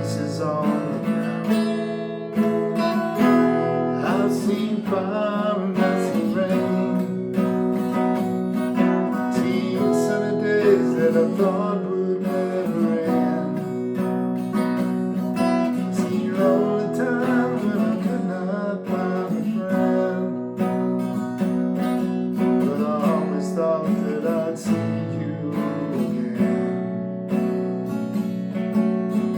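Acoustic guitar playing an instrumental passage: picked notes over ringing chords, without singing.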